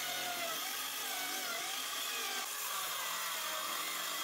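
Cordless circular saw cutting into a wall panel: a steady motor-and-blade whine whose pitch wavers slightly as the blade is loaded.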